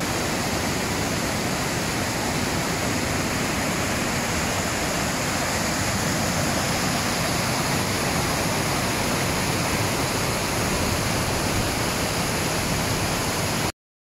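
Rushing water, a steady even sound of fast-flowing water that cuts off abruptly near the end.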